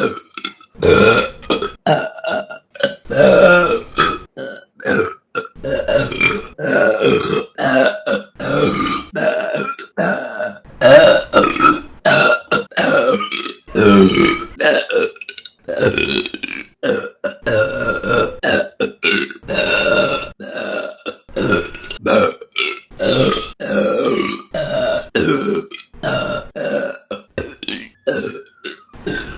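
A woman burping over and over: a long run of short and longer burps, one after another, each starting and cutting off abruptly.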